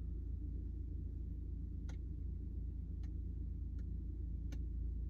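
Four light clicks, about a second apart, from operating a handheld scan tool, over a steady low hum in a truck cab.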